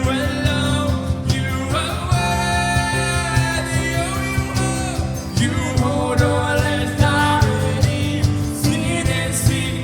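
A song with a singer over guitar and a steady beat.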